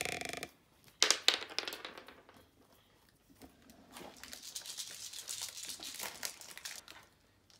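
A shiny candy packet crinkling as a small child handles and tears at it. There are sharp crackles about a second in, then a longer stretch of steady crinkling near the end.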